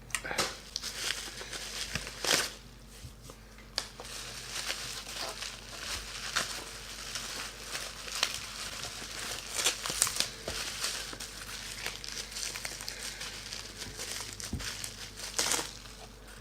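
Plastic and cardboard packaging crinkling and rustling as computer parts are handled and unpacked, with scattered sharp clicks and knocks, the loudest at about two, ten and fifteen seconds in.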